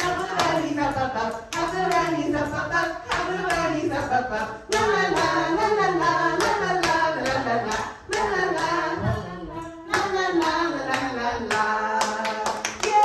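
Singing over music, with a steady beat of hand claps.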